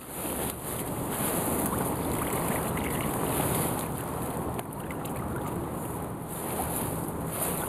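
Water sloshing and splashing around a landing net as a large carp is released back into the lake, over wind noise on the microphone.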